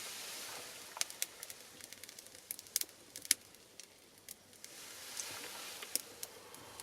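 Small fire of pine cones and cherry branches burning: scattered sharp crackles and pops, most of them around the middle, over a soft hiss of flame.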